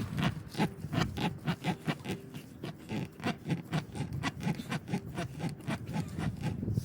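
Tire plug kit's rough spiral rasp (reamer) being pushed and twisted in and out of a nail hole in the rubber tire tread: a quick run of rasping, scraping strokes, several a second, as the hole is enlarged to take the plug.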